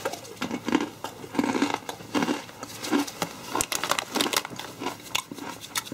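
Someone biting into and chewing a large potato-ring crisp (Hula Hoops Big Hoops), crunching with the mouth in a quick, uneven run of about two or three crunches a second.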